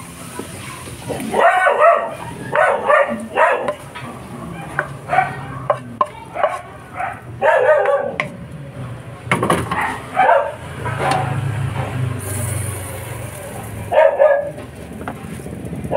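A dog barking repeatedly in short bursts and clusters, with a few clicks of a wooden spoon scraping a wok. A low engine drone passes a little past the middle.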